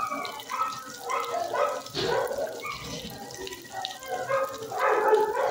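Dogs barking in a shelter kennel, a run of short pitched barks and yelps with louder ones about two seconds in and near the end.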